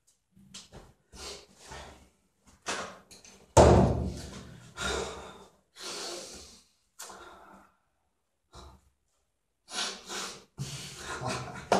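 A person sniffing and snorting in a string of short, hissy breaths, with a louder, longer burst about three and a half seconds in.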